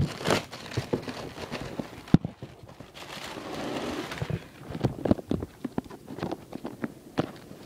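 A cardboard box and its packaging being handled and pulled open by hand: scattered knocks, taps and rustling, with one sharp knock about two seconds in and a short stretch of scraping or rustling a second or so later.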